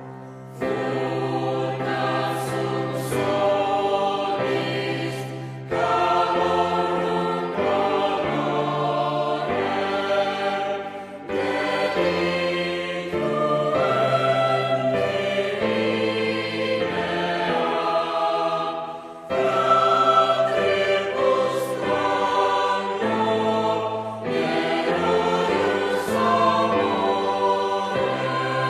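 Choir singing a slow piece in held chords, with short breaks between phrases.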